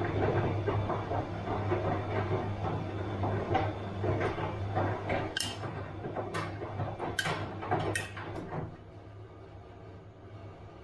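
Bosch washing machine running a wash: the drum tumbling over a steady low hum, with several sharp knocks in the middle. Near the end the tumbling stops and only the hum is left.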